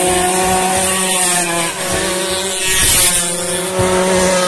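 Engines of racing pasolas (small motor scooters) revving up and down at several overlapping pitches, one passing close and louder about three seconds in.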